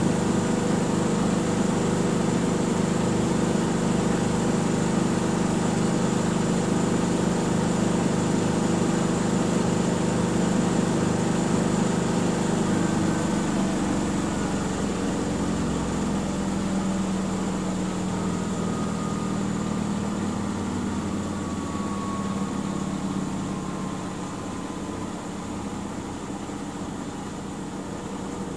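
Miele W 5963 front-loading washing machine in its 1600 RPM spin, a dense steady hum that, about halfway through, starts to grow quieter and drop in pitch as the drum slows down, with a faint falling whine.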